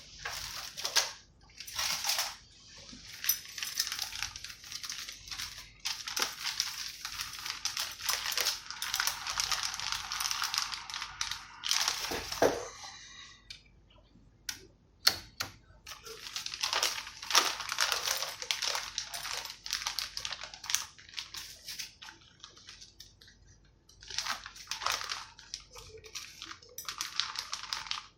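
Rustling and small clicks of things being handled and searched through on a workbench, in stretches of several seconds with short pauses between.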